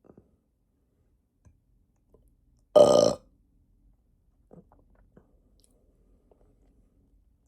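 One loud human burp about three seconds in, lasting about half a second, followed by a few faint mouth clicks.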